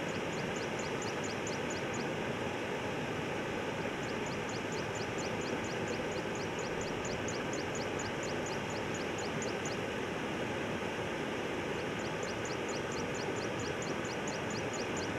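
River water rushing steadily over a concrete causeway and across rocks. Three bouts of a rapid high-pitched ticking call, about eight notes a second, sound above it: near the start, in the middle, and near the end.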